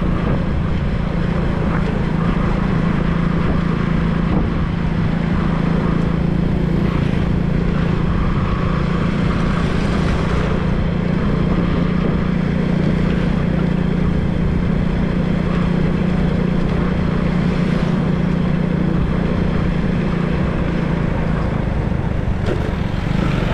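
A vehicle's engine running steadily while on the move, with wind buffeting the microphone.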